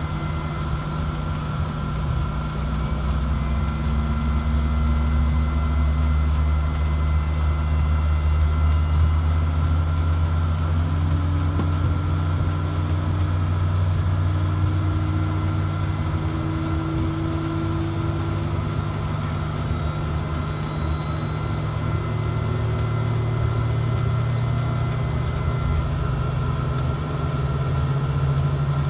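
Airliner engines running at taxi power, heard inside the cabin as a steady low hum with thin, steady high whines over it and a faint tone that slowly rises in pitch.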